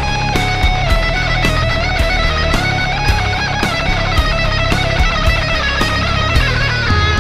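Instrumental passage of a rock song: electric guitar holding long notes over bass and a steady drum beat of about two hits a second, with no vocals.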